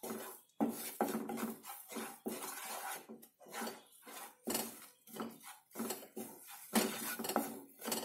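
Wooden spatula scraping and stirring a thick besan, ghee and milk-powder mixture around a kadai, in repeated strokes about one to two a second.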